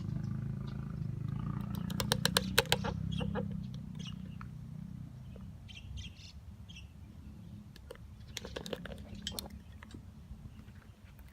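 Outdoor quiet just after a public-address chime has ended: the last echo of the chime dies away in the first second or so, and a low rumble fades over the next few seconds. Birds chirp faintly, and there are two quick runs of sharp clicks, about two seconds in and again near nine seconds.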